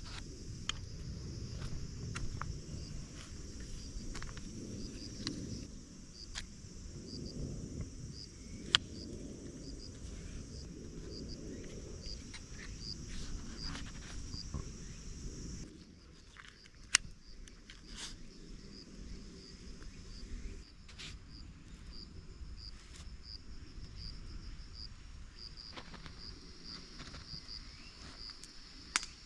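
An insect chirping in a steady rhythm, about one and a half high chirps a second, over low rustling from handling the tarp. Three sharp clicks stand out: one about nine seconds in, one near seventeen seconds and one at the very end.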